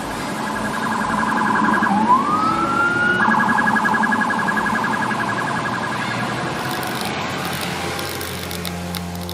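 Emergency vehicle siren over a background of street noise. A rapid warbling tone breaks into a rising wail about two seconds in, goes back to rapid warbling, and fades away. A low steady drone sets in near the end.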